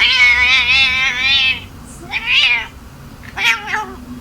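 A domestic cat meowing three times: one long, wavering meow, then two shorter ones, the middle one falling in pitch.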